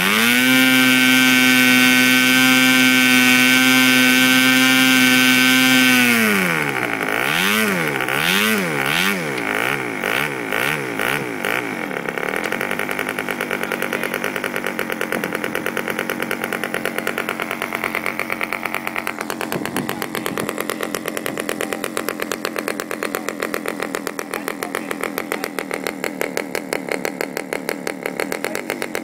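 Aurora K700 model aircraft diesel engine, a small two-stroke with an R/C throttle carburettor, running at high speed for about six seconds, then throttled down and blipped up and down several times in quick succession before settling into a steady low idle.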